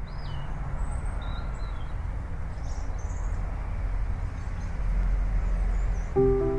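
A steady low rumble with faint high bird chirps scattered over it. A melody of clear notes starts just before the end.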